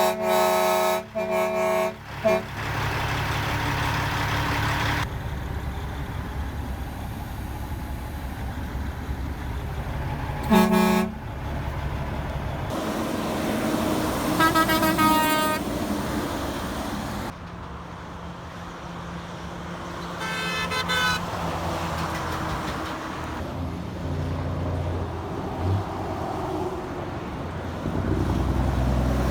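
Truck horns honking over the steady rumble of passing heavy trucks: three quick honks at the start, a short one about eleven seconds in, and longer honks around fifteen and twenty-one seconds.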